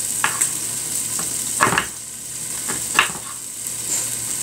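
Chicken pieces sizzling steadily as they brown in a pot on the stove, with several sharp taps and scrapes of a fork mixing chopped vegetables on a wooden cutting board.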